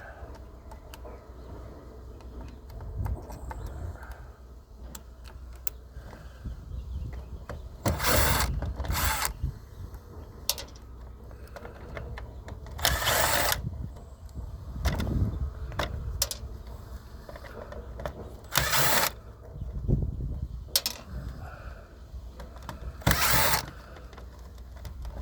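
Cordless drill-driver running in four short bursts of about a second each, backing screws out of an iRobot vacuum's plastic housing, with small clicks and clatter of plastic parts being handled between the bursts.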